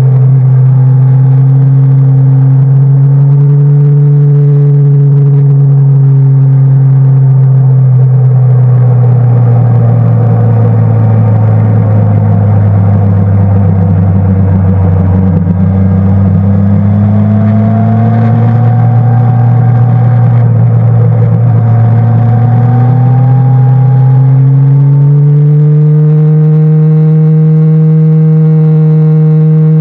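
Motorcycle engine running, heard from on board. The revs fall steadily to their lowest about halfway through, then climb back up as the bike accelerates again.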